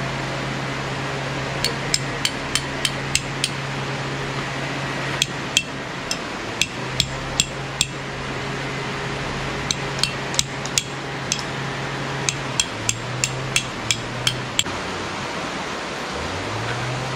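A hammer driving a tent stake for a guy line into hard ground: four bursts of six or seven quick, sharp, ringing strikes with short pauses between.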